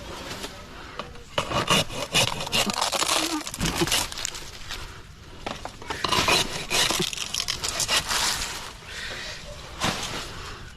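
Dry coconut palm fronds rustling and scraping in irregular bursts as they are cut and pulled at in the palm's crown.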